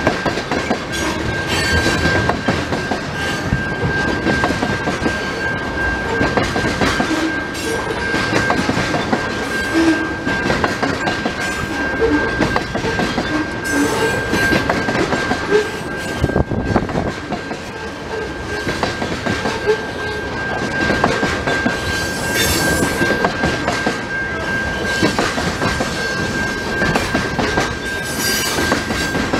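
Freight train cars rolling past at speed: steady rumble and clatter of steel wheels over rail joints. A steady high-pitched tone sits over the clatter and fades near the end.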